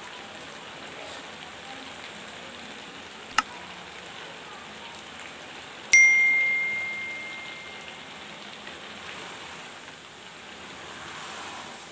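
Milk and ground dry dates bubbling steadily in a pan as the milk reduces for halwa. There is a sharp click a few seconds in, then about six seconds in a single bell-like ding from the subscribe-button animation that rings out for about two seconds.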